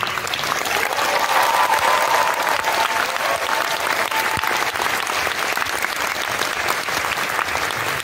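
Applause-like sound: a dense, steady patter of many small claps or crackles.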